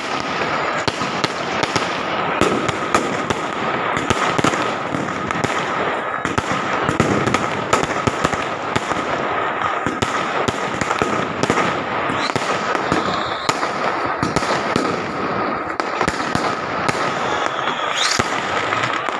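Diwali fireworks and firecrackers going off in a dense, continuous barrage of rapid bangs and crackles, with a steady thin high tone under them. Two rising whistles cut through, about twelve seconds in and again near the end.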